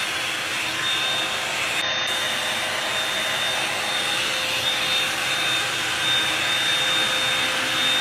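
Revlon hot-air dryer brush running steadily as it is drawn through hair: a constant rush of blown air with a thin, high motor whine.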